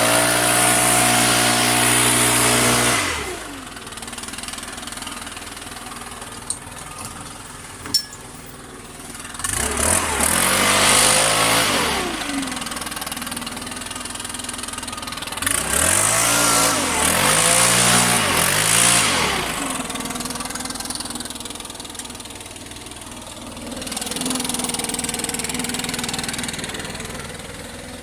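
Petrol-engined wood chipper chipping branches, its engine speed dipping and recovering several times as the branches are fed through, with loud bursts of chipping noise at each.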